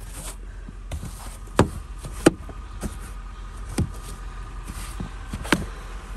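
Snow shovel scooping and knocking against packed snow: several sharp, separate knocks a second or so apart, the loudest about two seconds in, over a faint steady hum.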